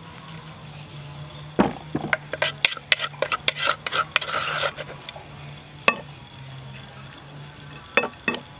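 Wooden spoon knocking and scraping against the inside of a terracotta clay mortar as the last of the papaya salad is scraped out: a quick run of sharp knocks for about three seconds, then a few single knocks near the end.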